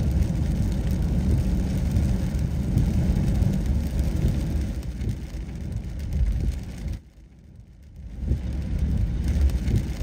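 Car interior road noise while driving: a steady low rumble of tyres and engine, dropping away for about a second near the end before returning.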